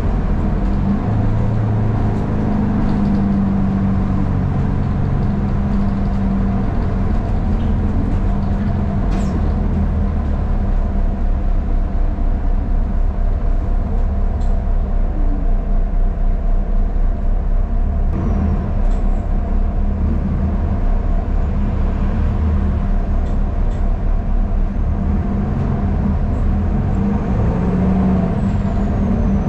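City bus in motion, heard from inside the cabin: a steady engine hum over road noise, with a quick pulsing in the loudness for several seconds in the middle.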